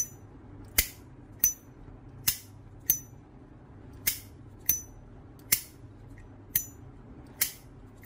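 Brass Zippo Armor lighter's lid flipped open and snapped shut about five times in a row, giving ten sharp metallic clicks that alternate between a bright ringing clink and a duller snap.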